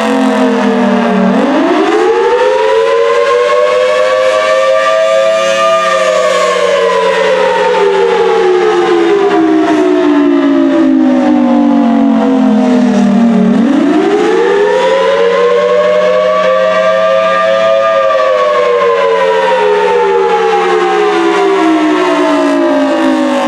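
Federal Signal Thunderbolt 1000T tornado siren sounding a rising and falling wail. Its two-tone pitch climbs for about four seconds, then slowly falls for about eight, twice over, with a low steady hum underneath.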